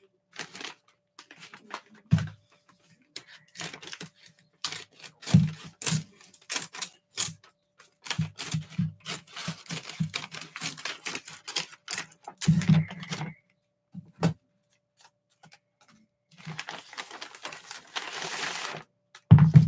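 A mailing envelope being opened by hand with scissors: a string of crisp paper crackles, snips and crinkles with a few dull handling knocks, then a longer tearing rasp of about two seconds near the end.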